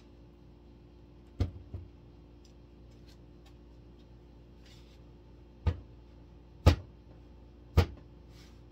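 Five sharp knocks over a steady low hum: two close together about a second and a half in, then three louder single knocks about a second apart near the end.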